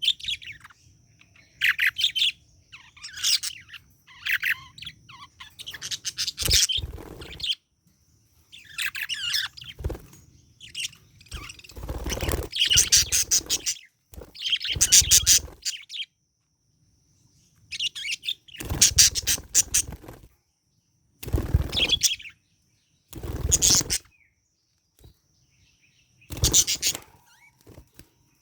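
Pet budgerigar chirping and chattering in a dozen or so short, rapid bursts with brief pauses between them.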